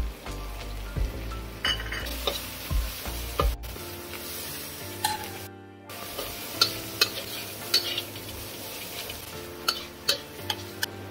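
Chilli paste and shredded bamboo root sizzling in hot oil in a stainless-steel wok, stirred with a metal spatula that scrapes and clinks against the pan. The clinks come irregularly and are more frequent in the second half.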